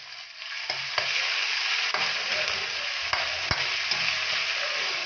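Chopped chilies and pepper dropped into hot oil in a wok with chicken and garlic, sizzling and frying while a spatula stirs them, with a few sharp clicks of the spatula against the wok. The sizzle swells about half a second in as the chilies hit the oil.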